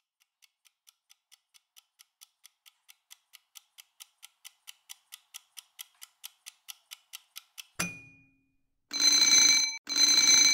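A countdown timer ticks about four times a second, growing louder. It stops with a sharp knock as it reaches zero. About a second later an alarm bell starts ringing in loud bursts roughly a second long, twice.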